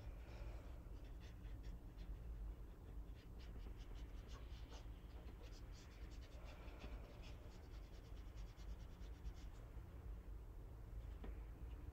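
Faint scratching and ticking of a watercolour brush working paint on paper, many quick small strokes, over a low steady hum; one sharper tick near the end as the brush goes to the paint tray.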